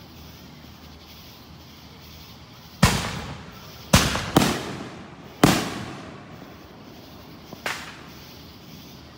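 Fireworks bursting: a loud bang about three seconds in, three more within the next few seconds, and a fainter one near the end. Each bang is followed by an echoing tail.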